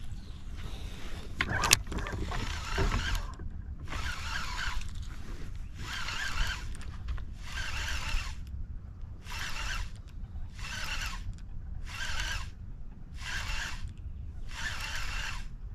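A baitcasting reel being cranked in short bursts of about a second, with brief pauses between them, about nine times. This is a stop-and-go retrieve of a lipless crankbait. A sharp click comes just before the cranking starts.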